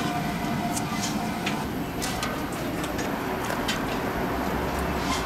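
Steady rumbling kitchen background noise around a large steaming pot of boiling pork, with scattered light clicks and knocks from handling.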